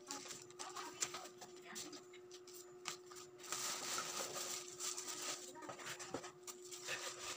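Faint rustling and crinkling of a plastic bag and foam packing as an amplifier is unwrapped and lifted out of its box, with small scattered knocks. The rustling grows busier about halfway through, over a faint steady hum.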